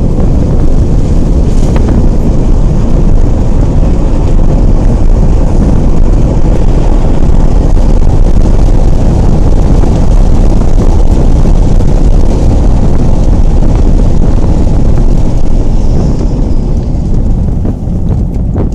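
Loud, steady low rumble of wind and road noise in a moving car, the wind buffeting the microphone; it eases slightly near the end.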